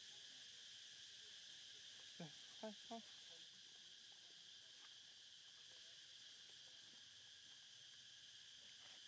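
Faint, steady high-pitched insect chorus, with three short pitched calls in quick succession about two seconds in.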